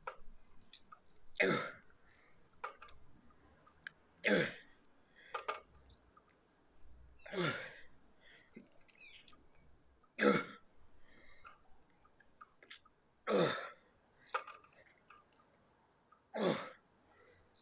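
A man breathing out hard with the effort of each rep of a chest-supported dumbbell row, about every three seconds, six times, with fainter short sounds between the breaths.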